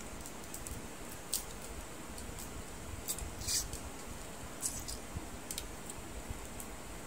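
Cooked crab shell being cracked and picked apart by hand: scattered small crunchy clicks, the sharpest cluster about three and a half seconds in.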